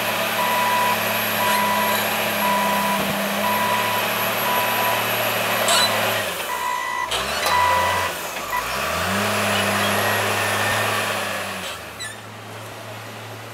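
John Deere 624J wheel loader's diesel engine running with a back-up alarm beeping at a steady pace, about twice a second. Around the middle the engine note drops and then climbs again, with a few longer beeps. Near the end the sound falls to a quieter engine hum.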